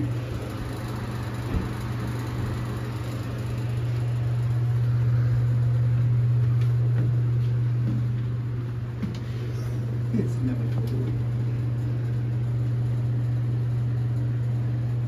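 Steady low machinery hum inside a submarine compartment, swelling a little in the middle.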